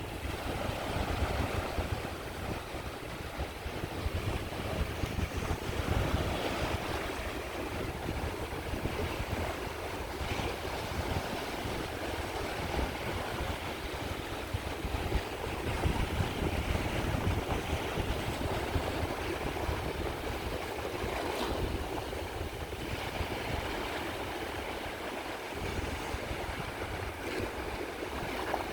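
Caspian Sea waves washing onto the shore: a continuous rush of surf over a deep low rumble, swelling and easing every few seconds.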